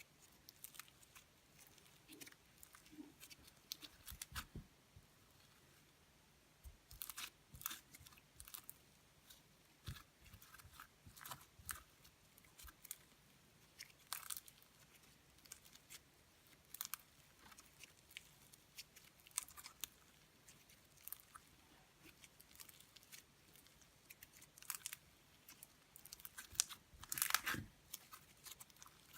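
Slime being squeezed, pressed and stretched by hand, giving scattered small clicks, pops and crackles, with a louder run of crackling near the end.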